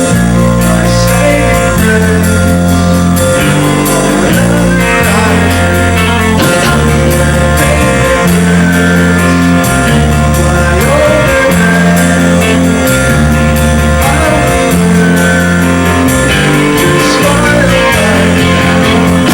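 A rock band playing live and loud: electric guitar and drums over held, shifting bass notes, with singing.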